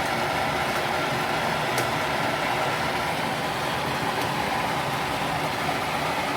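A steady rushing hum at an even level, with a couple of faint clicks.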